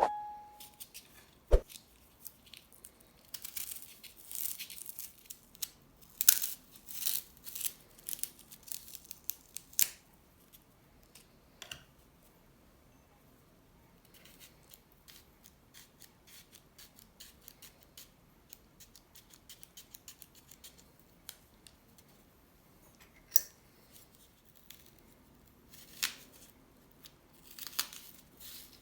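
Crisp snipping, crackling and tearing sounds of ingredients being prepared by hand. They come in quick runs over the first ten seconds, turn sparse, then return as a few louder snips near the end.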